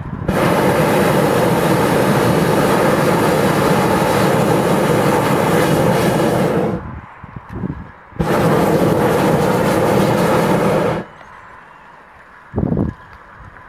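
Hot-air balloon propane burner firing in two long blasts, the first about six and a half seconds and the second about three seconds after a short pause, each starting and cutting off sharply, heating the envelope for lift-off. A brief, duller sound follows near the end.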